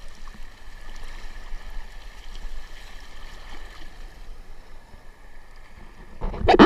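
Sea water rushing and sloshing around a GoPro camera in the surf, with a short, louder splash near the end.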